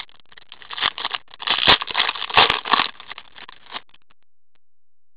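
Trading cards being handled with cotton-gloved hands: rustling and scraping as cards are slid and shuffled, stopping about four seconds in.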